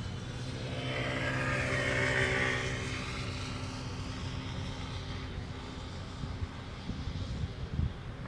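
A passing vehicle's engine drone and noise swell to a peak about two seconds in, then slowly fade away.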